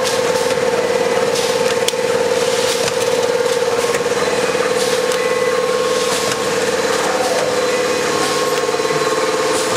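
Four-lane high-speed automatic packing machine running: a steady mechanical din with a whine held at one pitch that wavers slightly, over a continuous hiss and irregular clicks.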